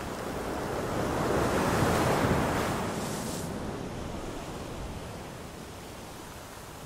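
Ocean surf: a wave breaking, swelling to its loudest about two seconds in and then washing out and slowly fading.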